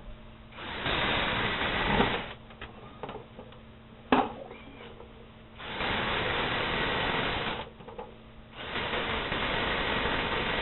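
Battery drill boring into the spot welds of a steel .50 cal ammo can, run in three bursts of a couple of seconds each, with a sharp click about four seconds in.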